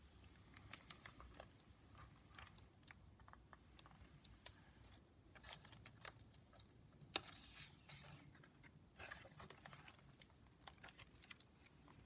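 Near silence with faint, scattered clicks and rustles of a hardcover picture book being held and a page turned. The loudest rustle comes a little past halfway.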